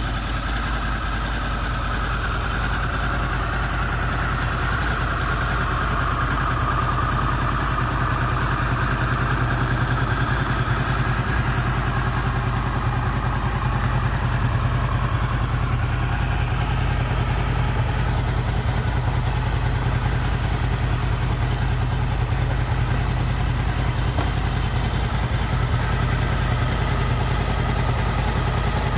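Honda VFR800 VTEC's V4 engine idling steadily on its first run after a timing-chain replacement, still warming up at about 43 °C.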